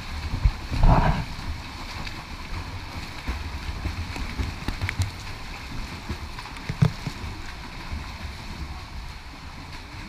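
Swimmers' strokes splashing and churning the pool water close to the camera, a steady low wash of water noise with a louder splash about a second in and another short one near seven seconds.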